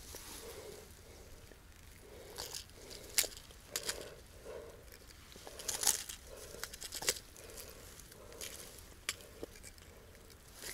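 Dry grass rustling and crackling as a freshly landed pike is handled on the bank, with sharp clicks scattered through, the loudest about three, six and seven seconds in.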